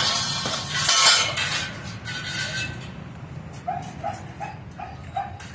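A dog barking in quick runs of short, even barks, about three a second, with one run in the second half. Near the start comes a loud stretch of harsh scraping noise, loudest about a second in.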